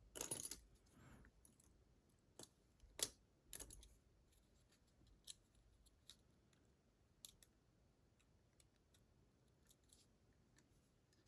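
Near silence broken by a short rustle at the start and a handful of faint, sharp metallic clicks and clinks a second or more apart, from handling a DORMA DC500 lock cylinder and its small parts.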